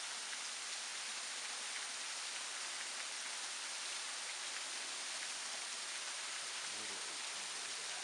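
Small waterfall plunging about 40 feet over wet rock ledges, making a steady, even hiss of falling and splashing water.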